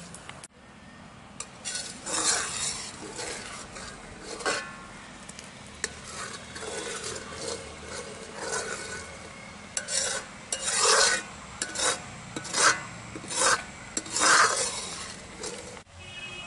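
A metal ladle scraping and stirring around a heavy metal kadai of reducing milk, in irregular strokes that grow louder and closer together in the second half. The scraping works the thickening milk and the skin forming on the pan's sides so the palkova does not catch and burn.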